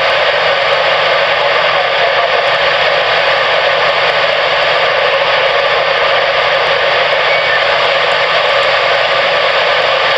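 Steady, loud hiss of static from a CB radio receiver, with no voice on the channel.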